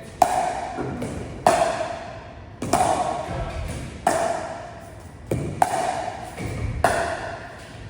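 Pickleball paddles striking a hollow plastic ball in a rally, about eight sharp pops, each ringing on and fading over about a second.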